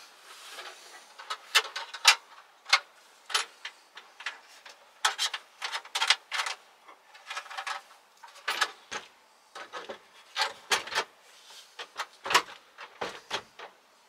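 Irregular clicks, knocks and scraping as a gas hob is handled and fitted into its cutout in a solid wood worktop.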